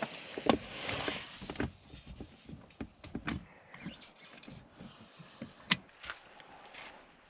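Rustling and scattered clicks and knocks of someone shifting in bedding and getting up, with two sharper clicks, one about half a second in and one near the end.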